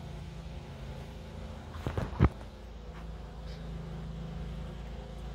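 A few light knocks and then one sharp clack about two seconds in, from parts being worked loose during an interior teardown of a 1988 Chevrolet Caprice, over a steady low hum.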